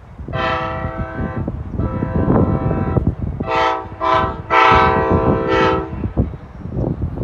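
Amtrak GE P42DC locomotive's multi-chime air horn sounding the grade-crossing signal: two long blasts, a short one, then a final long blast, the warning for a level crossing ahead. Wind rumbles on the microphone underneath.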